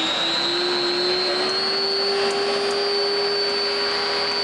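Electric kitchen mixer running at one speed, a steady motor whine that creeps slightly up in pitch over the first couple of seconds.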